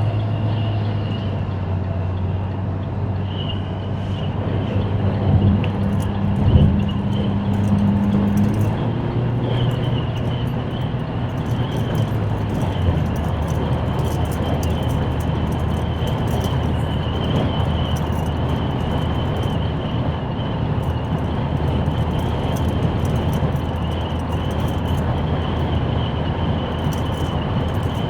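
Car driving, heard from the cabin: steady engine hum under road noise, the engine note changing pitch a couple of times in the first half. A brief low thump about six seconds in.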